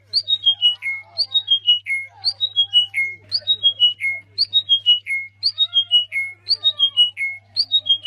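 A small brown songbird singing the same short phrase over and over, about once a second: roughly six clear whistled notes, each lower than the last.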